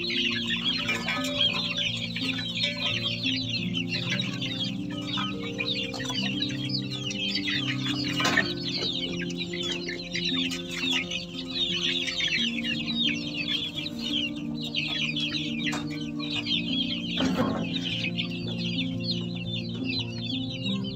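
A crowd of young chickens peeping and cheeping constantly, a dense stream of high, rapid calls. Background music with a slow melody runs beneath.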